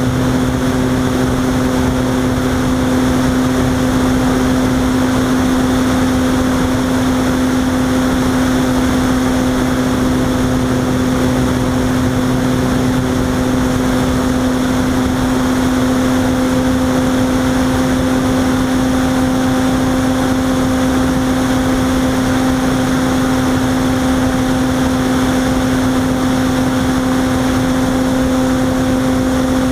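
Onboard sound of a Robbe Arcus Sport RC model glider in flight: a loud, steady hum holding one pitch over a constant rush of air.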